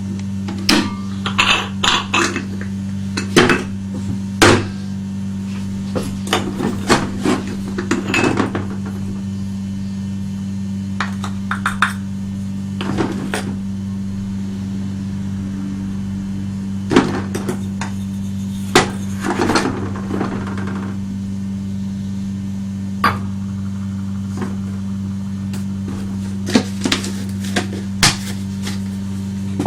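Coffee machine running with a steady low hum. Irregular clinks and knocks of cups and dishes come and go over it, bunched near the start, about two-thirds of the way in, and near the end.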